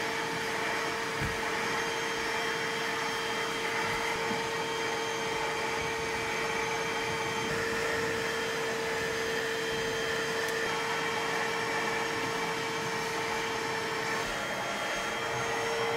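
Bissell portable carpet and upholstery cleaner running steadily, its motor giving a constant whine over the rush of suction as its hand tool is worked over carpet.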